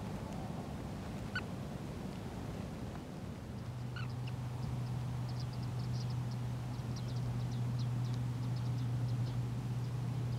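Wetland birds calling: two short single calls, then a rapid run of high, thin chittering calls. A steady low hum comes in a few seconds in.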